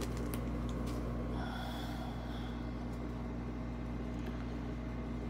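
Panini Prizm basketball cards being flipped through by hand, with faint slides and clicks of card on card. A steady low room hum is the main sound.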